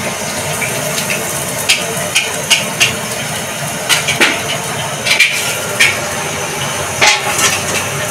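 Small plastic bags crinkling in short sharp bursts as they are handled and emptied, over a steady rushing background noise.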